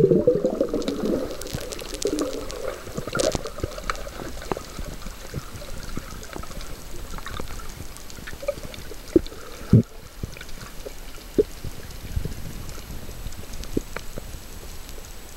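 Sea water heard underwater through a camera: a muffled watery rush with scattered clicks and pops. A bubbly burble fades out in the first second, and a few sharper clicks come around the middle.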